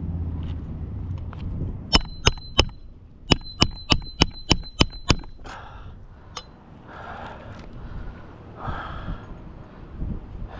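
Hammer striking a steel shingle snake tool to drive roofing nails back in under a shingle: three quick blows, a short pause, then seven more in quick succession, each with a metallic ring.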